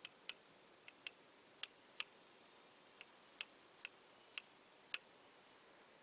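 Near silence broken by about a dozen faint, sharp ticks at irregular intervals, roughly two a second.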